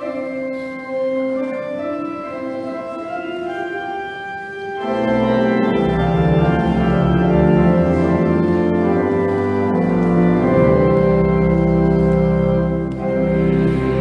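Church organ playing sustained chords in the middle and upper range. About five seconds in, deep pedal bass notes come in and the music grows fuller and louder.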